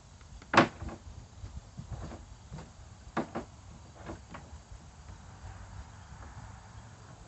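Handling knocks and clicks: one sharp knock about half a second in, a quick pair around three seconds in, and a few lighter taps between.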